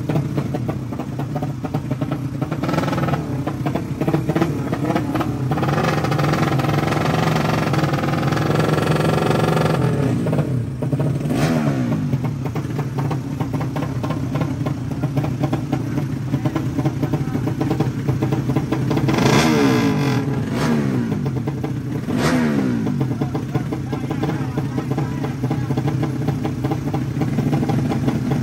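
Drag-racing motorcycle engines idling at the start line before launch, revved up and dropped back several times.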